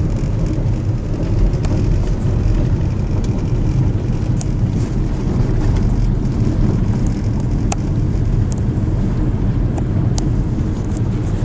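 Steady low road and engine rumble of a car, heard from inside the moving vehicle, with a few faint sharp ticks scattered through it.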